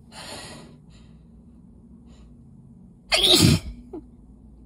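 A woman's breathy intake of breath, then about three seconds in a single loud sneeze with her voice dropping in pitch. It is one of a long sneezing fit brought on by dust while she is ill.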